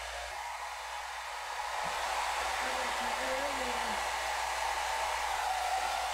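Hand-held electric hair dryer running steadily, blowing air through hair with an even rushing whoosh that gets a little louder about two seconds in.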